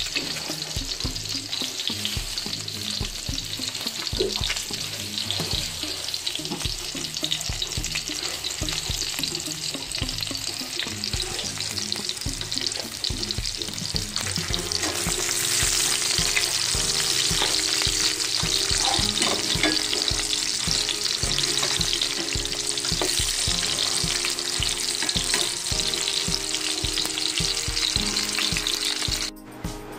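Hot dogs sizzling as they fry in oil in a pan. The sizzle grows louder about halfway through and cuts off suddenly near the end.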